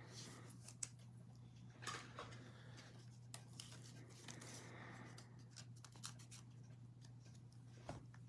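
Faint handling of baseball trading cards: scattered soft clicks and brief scratchy rustles as cards are slid and flipped, over a steady low hum.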